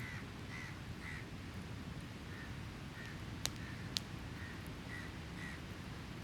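A bird calling over and over in short calls, about two a second, thinning out later. Two sharp pops from the crackling campfire come about halfway through, over a steady low rumble of surf.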